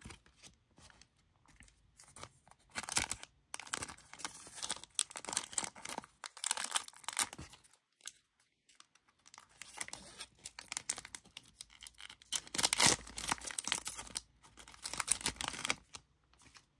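Plastic wrapper of a BBM baseball card pack crinkling and being torn open by hand, in two spells of a few seconds each with crackly clicks.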